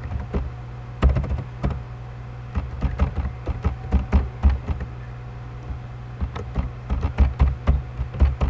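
Typing on a computer keyboard: irregular runs of keystrokes with short pauses, each key a dull tap, over a steady low hum.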